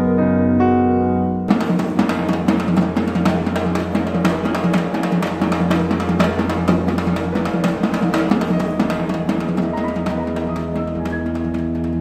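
Background piano music, then about a second and a half in a cut to a small two-headed drum beaten fast and steadily with a stick, over sustained tones.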